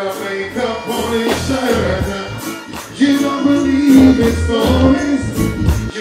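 Live reggae band music played loud through a concert sound system: a steady bass-and-drum beat under a man's voice singing into a microphone, with a long held note a few seconds in.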